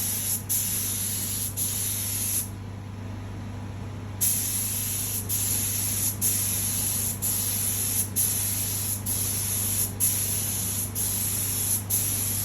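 Compressed-air paint spray gun hissing through a series of spraying passes, cut briefly about once a second as the trigger is let off, with a longer pause about two seconds in. A steady low hum runs underneath.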